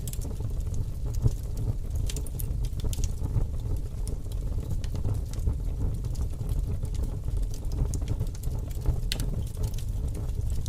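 Wood fire burning in a fireplace: a steady low rumble of the flames with frequent sharp crackles and pops from the burning logs.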